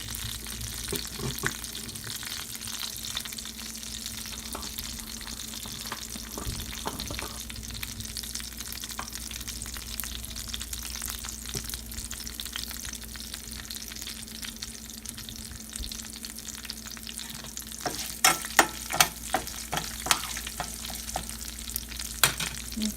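Tempering of mustard seeds, cumin, lentils, dried chillies, garlic and curry leaves sizzling steadily in hot oil while being stirred in the pan. Near the end comes a run of sharp clicks and knocks.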